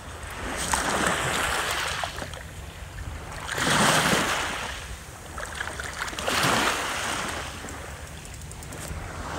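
Small waves washing up on a pebble and shell beach, swelling three times a couple of seconds apart, over a steady low rumble.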